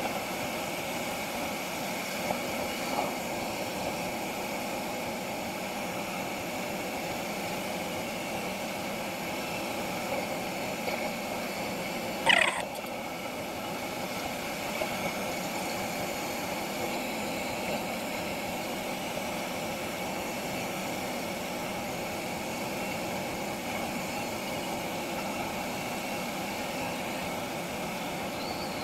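Steady rushing airflow around a glider's canopy, heard from inside the cockpit, with one brief sharp sound about twelve seconds in.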